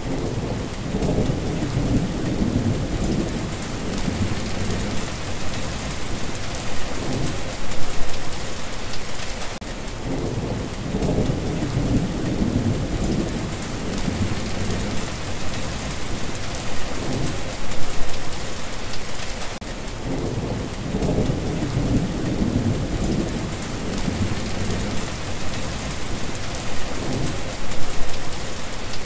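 Steady heavy rain hissing, with low rolling thunder swelling and fading three times, about every ten seconds, in the same repeating pattern.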